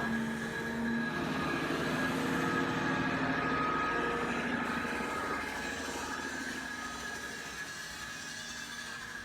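Small electric motors and plastic gearboxes of an RC toy excavator whirring steadily, with a high whine. It eases off a little in the second half.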